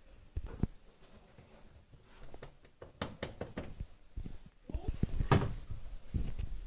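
Knocks and thuds on a door, in short clusters, the loudest a little after halfway.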